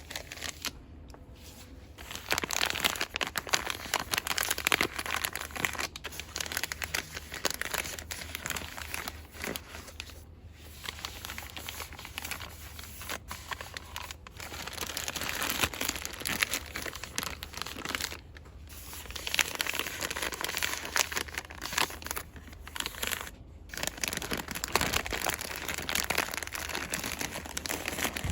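Fast, aggressive hand rustling and crinkling of cosmetics packaging in quick runs, with short pauses between them.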